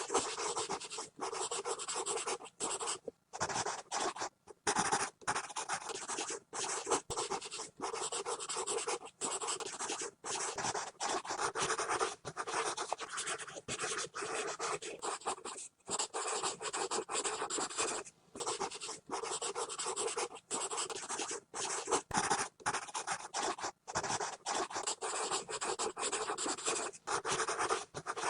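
Pencil scribbling hard and fast on paper: continuous scratchy strokes, broken about once a second by brief silences where the lead lifts off the page.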